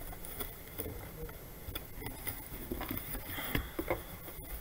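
Handling of an opened cardboard shipping box: flaps pushed back and books shifted inside, irregular rustles, scrapes and small knocks, with one louder bump about three and a half seconds in.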